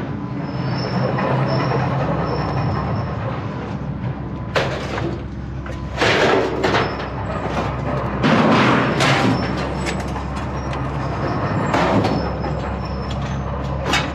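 Scrap metal being pulled out of a van and thrown onto a pile: a string of metal crashes and clatters a second or few apart, over a steady low machinery hum.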